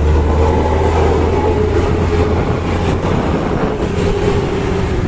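Hino Ranger dump truck's diesel engine running with a deep, steady rumble. A steady higher tone rides over it and fades after about two and a half seconds.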